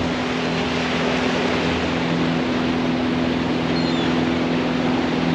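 Motorboat engine running steadily while the boat cruises, with a steady rushing noise underneath.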